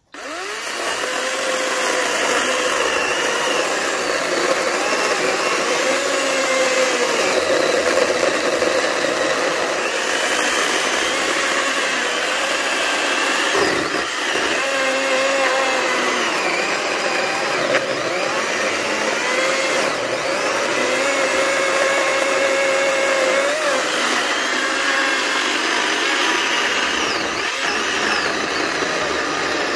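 Greenworks 80V battery-powered chainsaw cutting through oak slabs, starting suddenly and running steadily, its whine wavering in pitch as the chain works through the wood.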